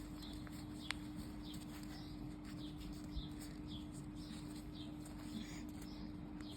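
Faint small-bird chirping repeated throughout, over a steady low electrical or fan hum, with two soft taps about one and three seconds in.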